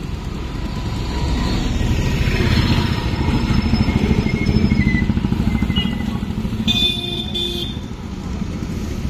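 A motorcycle engine passing close, growing louder to a peak about halfway and then fading, with two short horn toots about seven seconds in.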